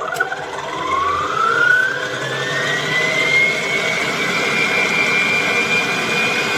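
Electric stand mixer speeding up to its highest setting. Its motor whine rises over about three seconds and then holds steady while the wire whisk beats eggs and sugar.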